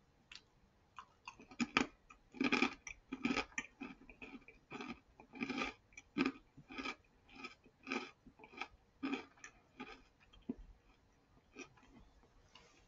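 Mouth crunching and chewing a thick, molded potato chip, about two crunches a second, growing fainter and sparser near the end as the chip is chewed down.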